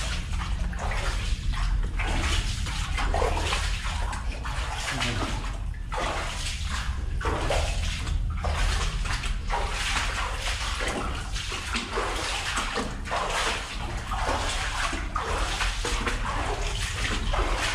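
Footsteps splashing through shallow water, coming irregularly about one or two a second, over a low steady rumble.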